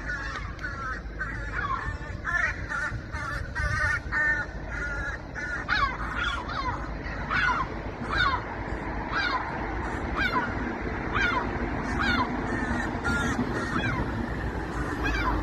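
Gulls calling repeatedly in short, wavering cries, crowded together at first and then coming about once a second, over a steady low rumble.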